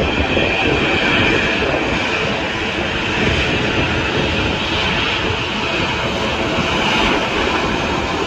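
Jet engines of an Airbus A320-family airliner running as it rolls along the runway: a loud, steady rush of noise with a hissing edge.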